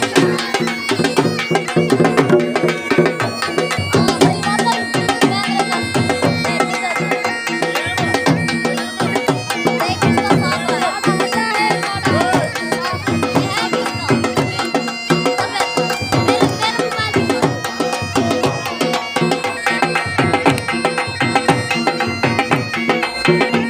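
Saraiki jhumar folk music: a dhol drum beating a steady dance rhythm under a droning reed pipe (been) playing the melody.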